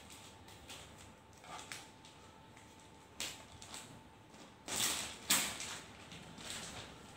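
Clear plastic bag rustling and crinkling as it is opened and a laptop is drawn out of it, in short irregular bursts. The loudest crinkles come about five seconds in.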